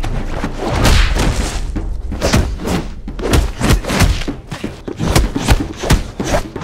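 Designed fight sound effects for punches, kicks and blocks: a fast run of heavy hits and thuds, about three or four a second, with deep low booms under the bigger blows.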